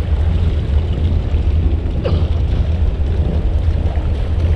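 Low, steady rumble of a Sea Ray Sundancer cruiser's Mercruiser 7.4-litre inboard engine running at slow speed.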